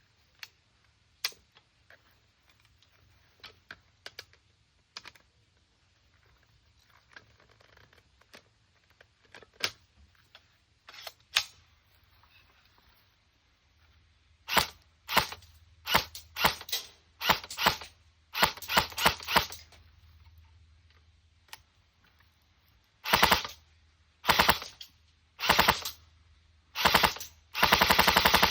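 LCT RPK airsoft electric gun: scattered handling clicks and knocks, then from about halfway many short full-auto bursts, each a fast, even rattle of the gearbox cycling, the last burst the longest.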